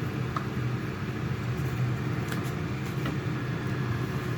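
Steady low mechanical hum, with a few faint clicks scattered through it.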